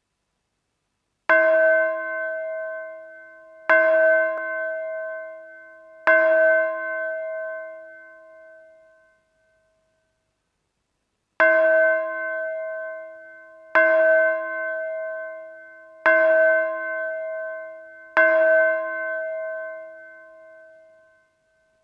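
A metal bell struck in slow, even strokes, each clang ringing on and fading: three strokes about two and a half seconds apart, a pause, then four more at the same pace.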